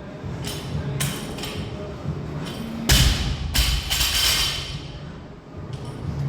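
Thuds and knocks of gym equipment in use, a few single impacts with the heaviest, deepest thud about three seconds in.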